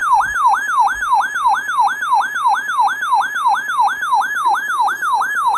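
Electronic siren-style alert tone, sweeping rapidly down and back up about three times a second in an unbroken run.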